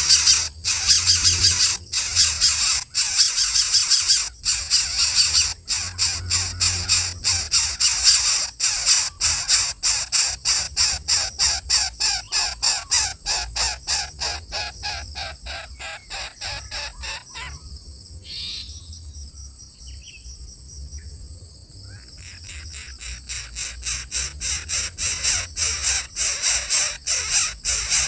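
Coucal chick giving a long run of harsh, rasping calls, about two to three a second, fading away briefly past the middle and then coming back.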